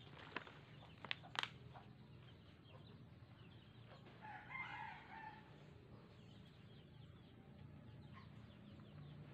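Faint bird calls, with one louder call of about a second between four and five seconds in, after a few sharp clicks in the first second and a half.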